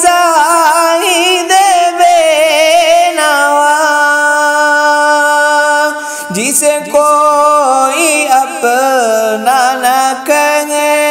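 A man singing an Urdu ghazal, drawing the line out in long, wavering, ornamented notes over a steady low drone, with a brief dip and a swooping slide in pitch about halfway through.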